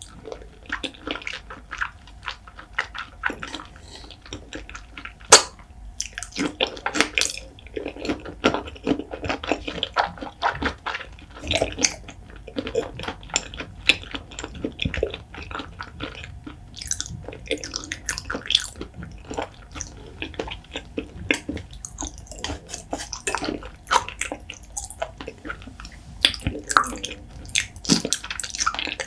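Close-miked wet chewing, smacking and squishing of soft raw seafood: soy-marinated raw shrimp, salmon and sea urchin roe. Many small wet clicks and lip smacks, with one sharp click about five seconds in.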